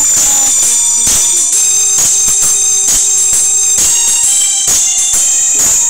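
Karaoke backing music playing an instrumental passage: a constant tambourine jingle over a beat about twice a second, with one long held melody note in the middle.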